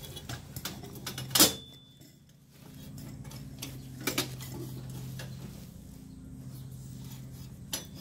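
Sheet-metal clanks and clicks as boiler burner-compartment parts are lifted and dropped back into place, with one sharp clank about a second and a half in. A steady low hum runs underneath.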